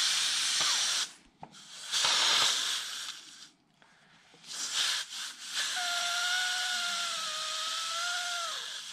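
Instant Pot's pressure-release valve venting steam through a paper towel, hissing in stop-start spurts as the valve is worked with a wooden spoon during a quick pressure release. About six seconds in the hiss settles into a steady stream, and a wavering whistle, like crying, sounds over it for a couple of seconds.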